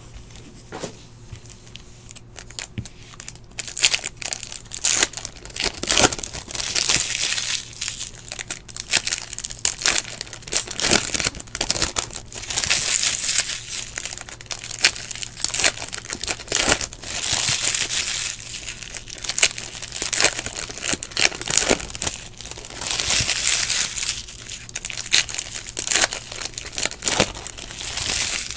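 Foil wrappers of trading-card packs being torn open and crinkled by hand, in crackling bursts every few seconds, with cards being handled in between.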